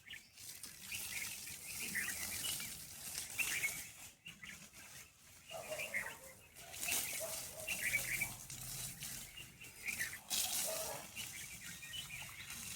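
Small birds chirping in short, scattered calls, over surges of breezy outdoor hiss.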